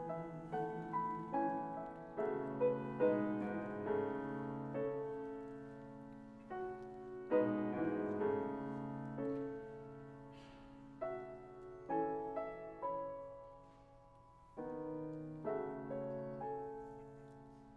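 Piano playing a slow, gentle passage on its own, each chord struck and left to ring and fade before the next.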